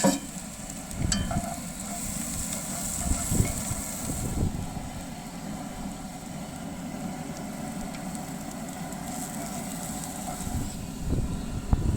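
Food cooking over an outdoor grill burner: a steady low rumble with faint sizzling, and a couple of sharp clicks about a second in.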